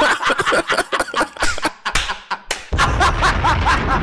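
Several people laughing hard together in quick, rapid bursts.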